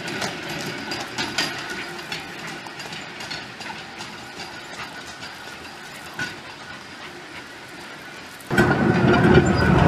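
Steel wheels of a hand-pushed canoe cart rolling along portage rails, clicking and clacking irregularly and growing fainter as the cart moves away. About eight and a half seconds in, a much louder, close noise cuts in abruptly.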